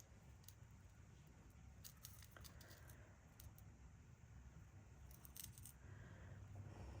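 Near silence with a few faint, scattered small clicks, a quick cluster of them near the end, from seed beads being picked up and strung onto a necklace.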